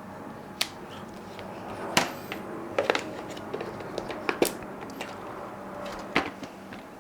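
A handful of separate sharp plastic clicks and knocks as a Black+Decker Dustbuster handheld vacuum's parts (filter, basket, dust bowl) are handled and fitted, with a faint steady hum underneath.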